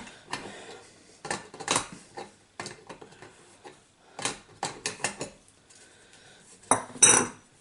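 Metal parts of an antique paraffin blowlamp clinking and knocking as they are handled and set down on a workbench, in irregular clicks with a louder clatter near the end.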